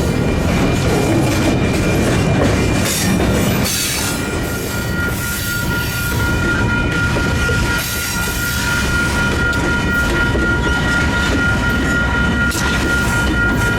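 Freight cars rolling past close by: a steady low rumble of the wheels with irregular clacks over the rail joints. A high, steady wheel squeal runs through it and grows strong about four seconds in.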